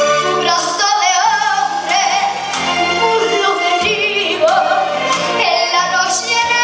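A young girl singing a Spanish copla into a microphone, her held notes wavering with vibrato, over instrumental accompaniment.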